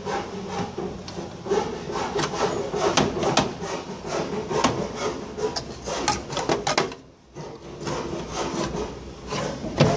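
Woodworking noise: irregular rasping strokes on wood, pausing briefly about seven seconds in.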